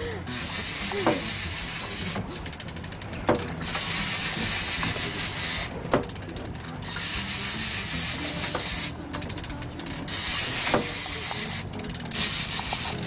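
Big-game fishing reel clicking in quick runs as line is wound in during a fight with a fish, four times, between stretches of steady hiss.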